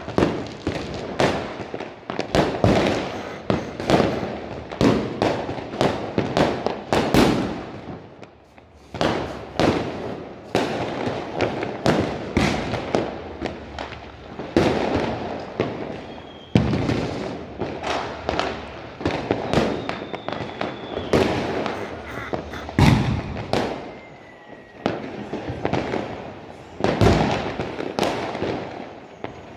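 Fireworks and firecrackers going off across the town: a dense, continuous string of sharp bangs and crackles, often several a second, easing briefly about eight seconds in, with a few faint whistles later on.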